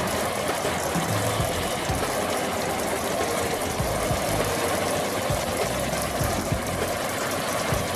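Supercharged engine of a pro street pickup idling with an uneven low pulse as the truck rolls slowly.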